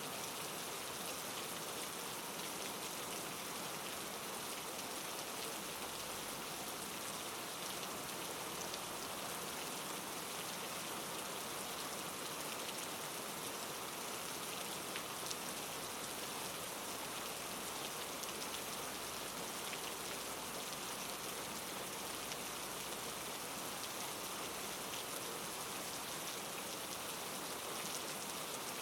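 Steady rain falling, an even hiss of drops on a surface with faint scattered individual drop ticks.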